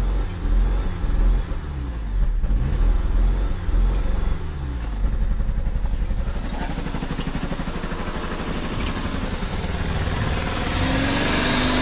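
A 2015 Jeep Patriot's four-cylinder engine idles with the throttle plate propped slightly open by hand, a stand-in for a faulty electronic throttle body. The engine speed swings up and down during the first few seconds, then settles to a steadier idle. Near the end it becomes louder and fuller.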